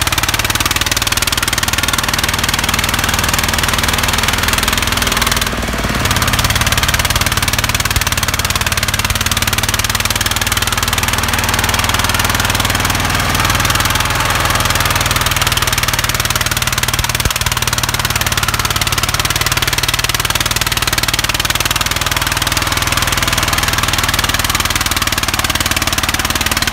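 Single-cylinder diesel engine of a Vietnamese công nông farm truck chugging hard under load as it crawls up a muddy slope with a full load of coffee sacks. Its sound dips briefly about five seconds in, then carries on steadily.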